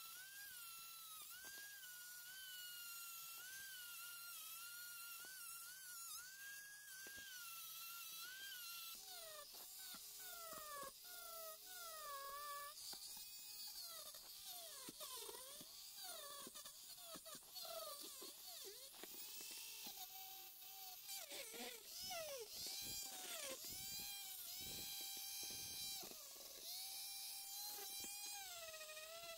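Handheld rotary tool spinning a small wire wheel, then a small abrasive wheel, against the die-cast metal parts of a toy truck to strip old paint. Its whine wavers, dipping in pitch and recovering over and over, more choppily in the second half.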